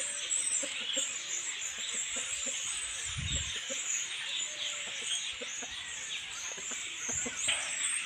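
A flock of common starlings chattering and chirping without a break in the trees, with a brief low thump about three seconds in.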